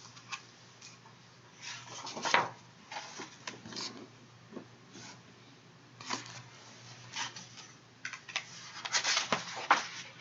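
Paper rustling and light taps as a picture book is handled and its pages are turned, in scattered bursts with a louder rustle about two seconds in and a cluster near the end.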